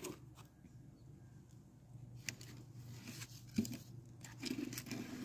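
Faint, scattered rustles and light taps from hands handling succulent cuttings and potting soil in a plastic planter, over a steady low hum.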